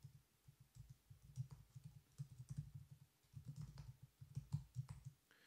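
Faint typing on a computer keyboard: a run of irregular keystrokes, with a short pause about three seconds in.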